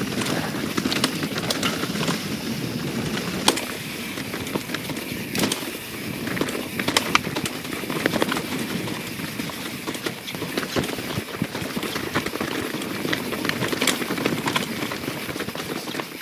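Full-suspension YT Jeffsy 27 mountain bike rolling fast down a rocky, leaf-covered trail: continuous tyre and trail noise, with frequent sharp clicks and knocks of the chain and frame rattling over rocks and roots.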